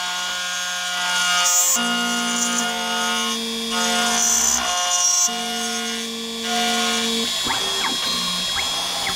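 Home-built CNC mill machining a steel plate with an end mill under flood coolant: the machine's motors whine in several steady tones that jump to new pitches from one move to the next, with a high cutting hiss that comes and goes a few times. Near the end the tones sweep up and down.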